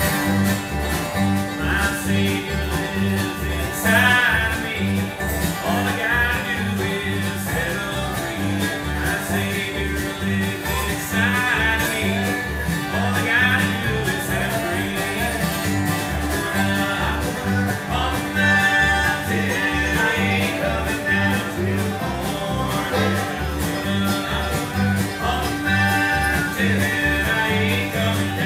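Bluegrass band playing live: acoustic guitars, fiddle, dobro, banjo and upright bass over a steady bass beat.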